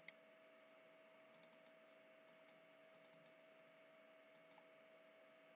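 Near silence: faint room tone with a steady low hum and a few very faint, scattered clicks.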